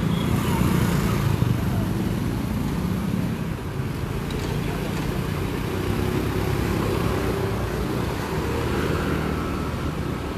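Road traffic noise: motor vehicle engines running with a steady low rumble, and faint voices underneath.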